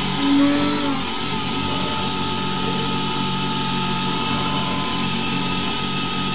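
Hercus PC200 CNC lathe running, its spindle motor giving a steady whine over a low hum, with a brief shift in pitch about half a second in. No chatter or screech is heard.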